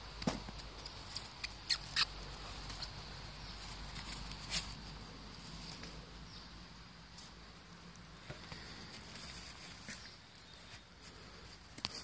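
Scattered light ticks, clicks and rustles from a dog handling a wooden stick on the ground, with a cluster of sharper clicks in the first few seconds and a couple more near the end.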